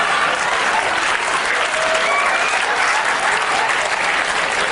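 Studio audience applauding steadily and laughing.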